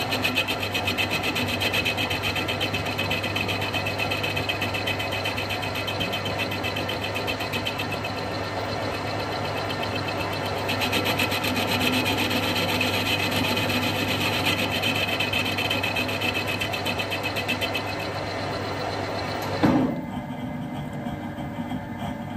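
Metal lathe running with its cutting tool taking a light cut on the outside of a Snider Enfield rifle barrel's flared, damaged muzzle: a steady hum with a fast, even chatter from the cut. About twenty seconds in there is a knock and the chatter stops, leaving the lathe running more quietly.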